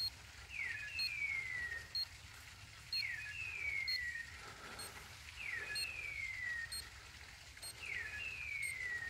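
Dog GPS X20 collar's beeper sounding its point alarm, which signals that the dog is standing on point. Each call is a short rising chirp followed by a longer falling whistle, repeated evenly about every two and a half seconds, four times here. Faint quick ticks sound over the calls.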